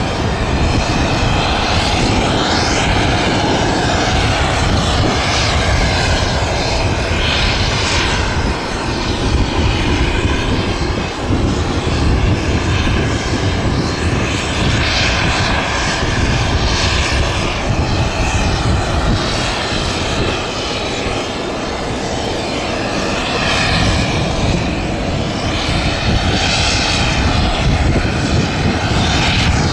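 Boeing 737-300 jet airliner's CFM56 turbofan engines running loud and steady, with a rushing hiss whose tone shifts every few seconds.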